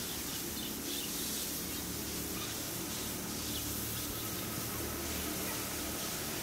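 Steady outdoor background noise, a low hum under a high hiss, with a few faint, short, high chirps in the first few seconds.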